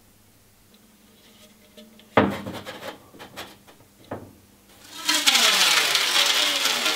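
Metal paint can handled on a shelf: a sharp knock with a brief rattle about two seconds in, a second knock at about four seconds, then a longer, louder scraping rush from about five seconds on.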